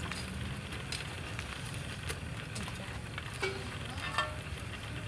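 Large whole prawns sizzling on a wire grill rack over an open fire, with scattered sharp crackles and light clicks as metal tongs turn them.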